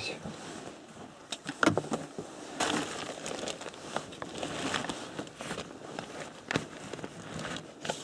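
Handling noise from a fixed-blade knife in a hard plastic sheath with a belt strap: irregular clicks and rustling as the sheath and strap are worked and the knife is drawn.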